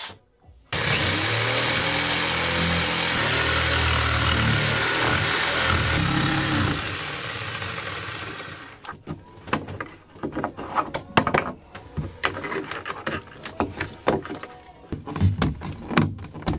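A power tool running for about six seconds, its pitch stepping up and down, then stopping; a string of irregular clicks and knocks follows.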